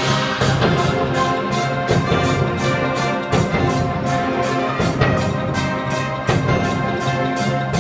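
Brass band playing, full brass chords over a steady percussion beat of about three strokes a second.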